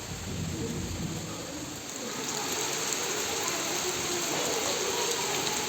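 Rain falling, a steady hiss of many small drops that grows louder about two seconds in.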